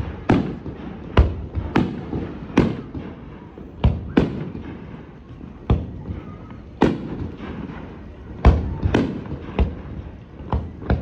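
Aerial fireworks bursting: about a dozen sharp bangs at uneven intervals, each trailing off in a short echo.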